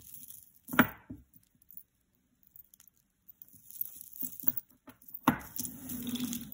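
Hands handling a tangle of beaded costume jewelry on a cloth-covered table: a sharp clack about a second in, a few light clicks, then rustling and clinking for the last second or so as a cord necklace is pulled free of the pile.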